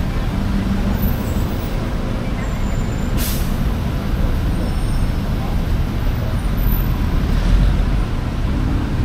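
Road traffic: a steady low rumble of passing vehicles, with a short sharp hiss about three seconds in and the rumble swelling about seven and a half seconds in.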